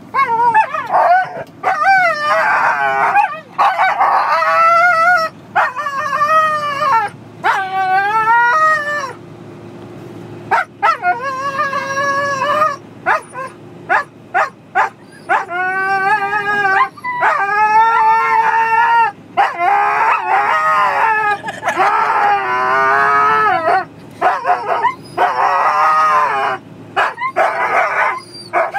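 Siberian huskies howling in long, wavering calls, one after another with several voices overlapping at times, inside a car cabin over a low road hum.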